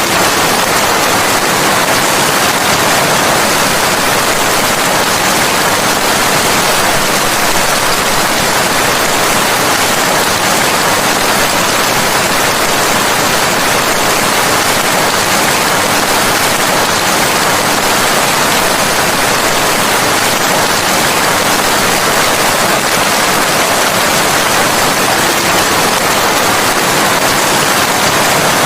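Steady, dense rainfall, an even hiss with no let-up and no separate drops standing out.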